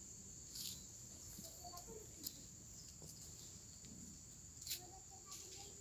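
Faint steady high-pitched drone of crickets, broken by three short sharp clicks and a few faint short calls.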